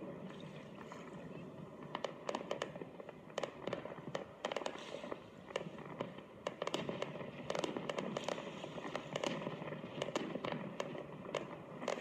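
Fireworks bursting in quick, crackling pops, heard as broadcast audio played through a laptop speaker. The pops start about two seconds in and come thick and fast after that.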